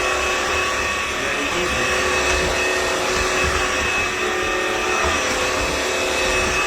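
Cordless wet-dry vacuum mop running steadily as it vacuums the floor, a constant motor whine over a steady rush of air.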